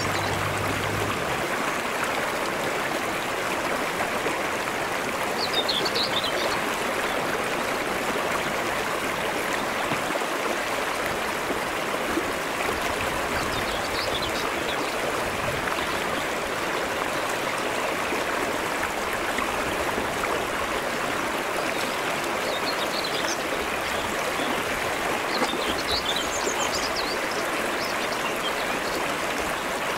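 Shallow mountain stream running steadily over a rock bed, with a few brief faint high chirps above the water.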